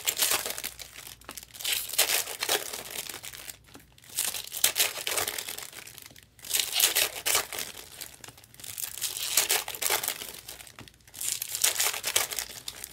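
Foil trading-card pack wrappers crinkling and tearing as packs are ripped open and handled, in repeated irregular bursts.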